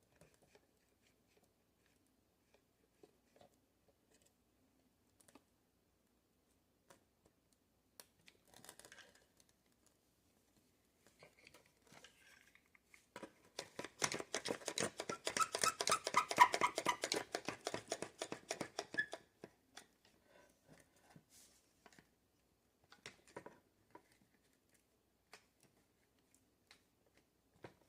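Scattered small clicks and handling noises, then a dense run of rapid clicking that lasts about six seconds, starting about halfway through.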